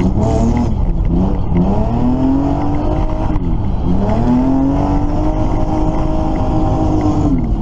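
BMW car engine revving hard, heard from inside the cabin: its pitch rises and falls several times, then holds high for a few seconds before dropping near the end.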